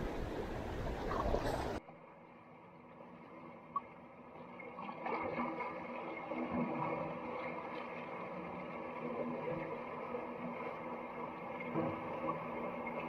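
Seawater washing and sloshing among shore rocks and a rock pool, muffled, with a sharp tick about four seconds in. Before that, louder rustling handling noise cuts off abruptly about two seconds in.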